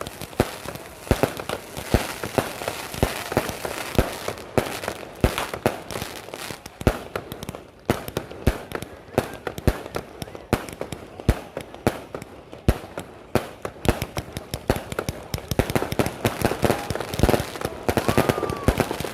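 Firecrackers and fireworks going off in a fast, irregular string of sharp bangs and pops, several a second, without a break.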